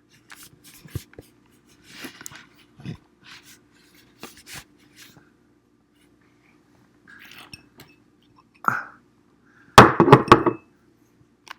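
Rummaging on a desk for a pill bottle: scattered small clicks, taps and rustles, then a loud burst of knocking and handling noise about ten seconds in as the camera is bumped and moved. A faint steady hum runs underneath.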